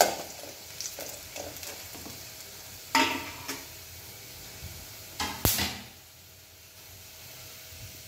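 Mustard seeds, shallots and dried red chillies sizzling in hot coconut oil in an aluminium kadai while it is tempered. A metal spoon stirs and scrapes against the pan in a few sharp strokes, at the start, about three seconds in and again about five and a half seconds in, leaving only the quieter sizzle after that.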